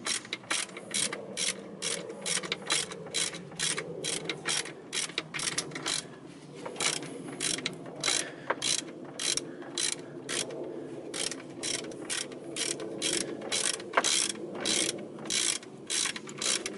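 Ratchet wrench with a socket clicking in quick, even strokes, about three clicks a second with a couple of short pauses, as it unscrews a throttle body mounting bolt.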